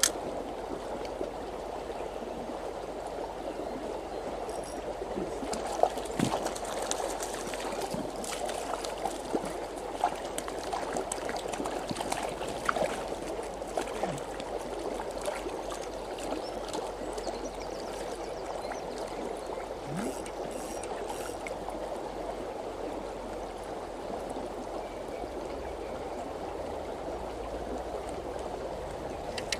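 Shallow river running steadily over a gravel bed, a continuous rushing murmur. A few short, sharp clicks stand out above it, mostly between about five and fifteen seconds in.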